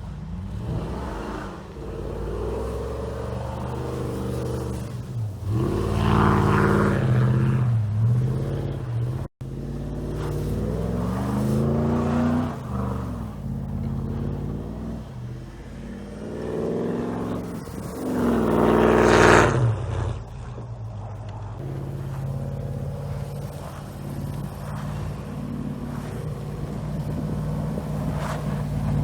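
Pickup truck engine revving up and falling back again and again while driving hard in snow, the loudest rev-up about two-thirds of the way through.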